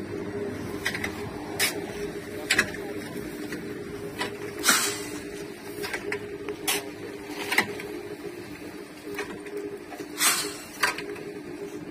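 Shovelfuls of cement-gravel mix being scraped up and dumped into the mould of a cinder-block machine: sharp, irregular scrapes and gritty pours every second or two, over a steady low hum.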